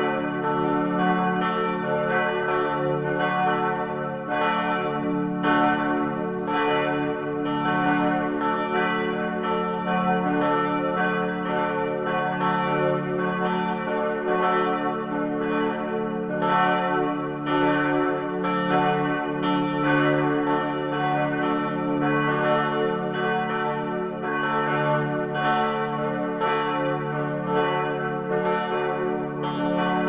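Several church bells ringing together in a continuous peal: strikes come in quick succession, about one and a half a second, over a steady hum of ringing tones.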